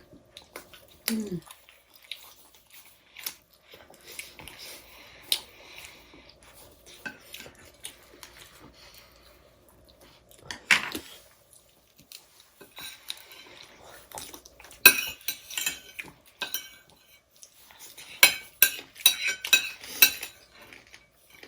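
Cutlery clinking and scraping against plates during eating: scattered sharp clicks, growing into a busier run of clinks in the last third.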